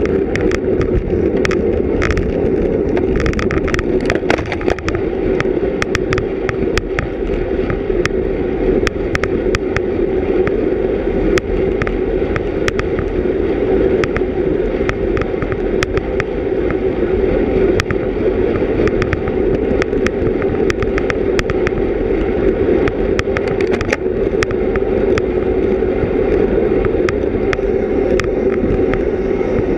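Steady rush of wind and road noise on a GoPro Hero 3+ carried on a road bicycle at race speed, with many short sharp clicks scattered throughout.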